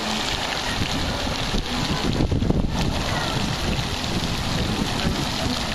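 Steady rush of pool water splashing and spraying, with wind buffeting the microphone.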